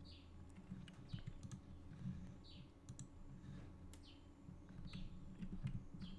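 Faint, scattered clicks of a computer keyboard and mouse as keys and mouse buttons are pressed, over a low steady hum.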